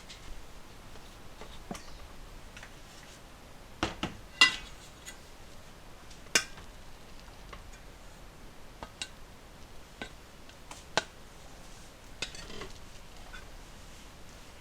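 Dishes and cutlery being handled: scattered clinks and knocks at irregular intervals, the sharpest about four and a half seconds in, with others near six and a half and eleven seconds.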